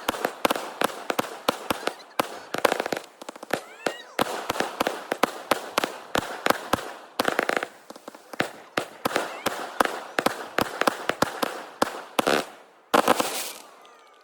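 Hand-held tezutsu tube fireworks going off: rapid sharp cracks and pops, several a second, over a rushing hiss. A loud burst comes near the end and fades away.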